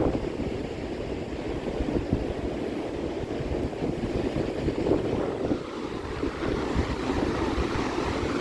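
Big Lake Michigan waves washing onto the beach, with gusting wind buffeting the microphone.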